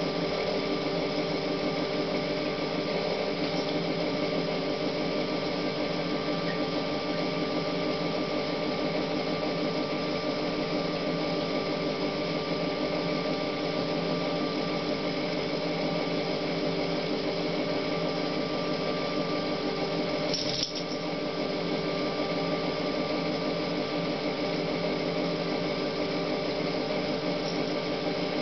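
Tap water running steadily into a sink, with one short click about twenty seconds in.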